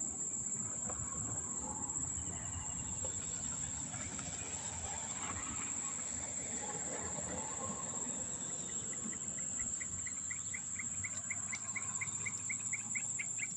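Evening insect chorus in tropical forest: a steady, high-pitched insect drone, joined about two-thirds of the way in by a rapid run of repeated chirps, about four a second, over a low rustling rumble.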